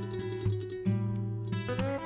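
Background music: acoustic guitar plucked and strummed over a repeating bass line, with one note sliding upward near the end.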